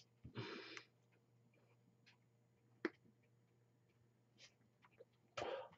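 Near silence while a hit is drawn on a small pod vape: a short breath just after the start, a single sharp click about three seconds in, and a breathy rush of air near the end.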